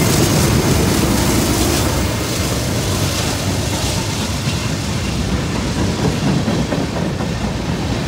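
Freight train passing close by: the last trailing diesel locomotives and then the first freight cars rolling past, a loud steady rumble of engines and wheels on the rails, easing slightly after about two seconds.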